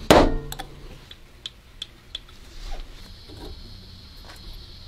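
A sharp metal strike right at the start, from a pin being driven into a small metal gun part with a brass punch. It is followed by a run of light ticks and a few softer clicks as the small metal parts are handled and fitted together.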